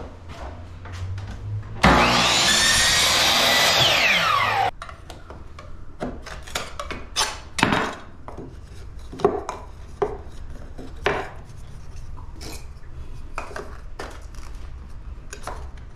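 An electric saw cutting a piece of baseboard trim, running about three seconds with its pitch falling near the end, then stopping abruptly. After it come light knocks and taps as the cut piece is fitted into the corner.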